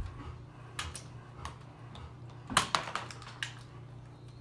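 Scattered light clicks and knocks over a low steady hum, with a quick cluster of them a little past halfway.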